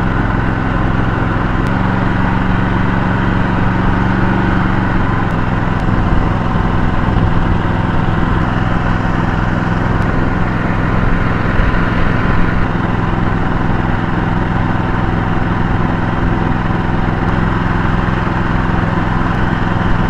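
A small boat's engine running steadily, the boat under way.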